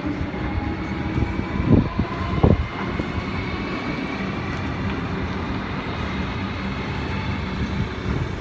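Steady low rumble of vehicle traffic with a faint hum, and a couple of louder thumps about two seconds in.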